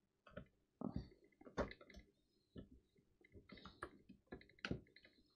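Adjustable spanner working the seized blade clamp of an Erbauer reciprocating saw: a run of irregular metal clicks and knocks, some with a short ring.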